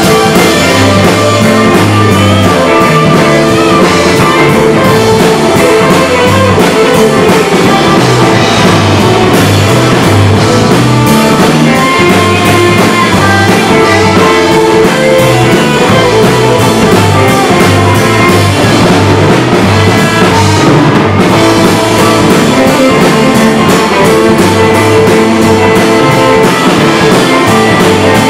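Rock band playing live: two electric guitars, an electric bass and a drum kit, loud and steady.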